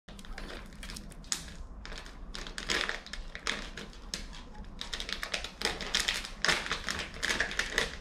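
Irregular rapid clicking and tapping of small dogs' claws on a wooden floor.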